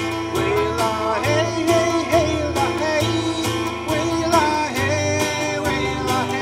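A man singing a gospel song while strumming an acoustic guitar, with low bass notes underneath. The voice comes in about half a second in, over steady strums.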